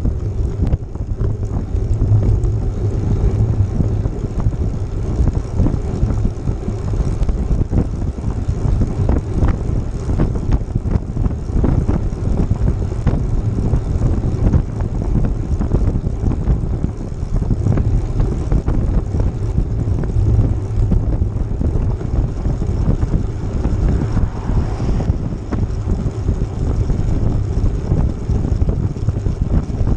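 Steady wind buffeting on a camera microphone moving at road speed, with the rumble of travel along the road; the low rushing noise stays level throughout.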